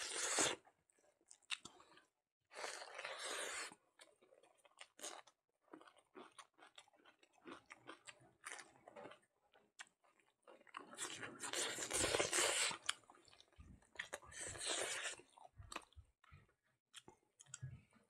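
Close-miked chewing of smoked pork leg and rice eaten by hand, in several bouts with short wet clicks and smacks between them.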